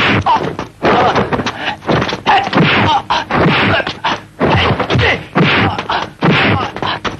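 Dubbed kung fu film fight sound effects: a fast run of punch and kick impacts, sharp whacks and thuds coming about two or three a second, with short shouts from the fighters between the blows.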